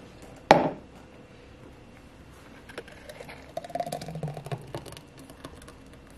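A glass jar set down on a countertop with one sharp clunk, then thick blended smoothie pouring from a blender cup into the jar, a wet pouring sound for about a second near the middle.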